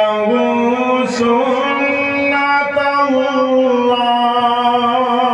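A male qari reciting the Quran in a melodic chanted style, holding long notes that step up and down in pitch, amplified through a microphone and loudspeakers.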